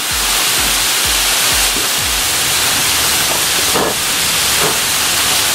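Water jetting under pressure out of a house's drain pipe and splashing onto the mud, a steady rushing spray with a low pulsing in the first two seconds. It is the test water that filled the whole drain system draining out through the knocked-out test plug.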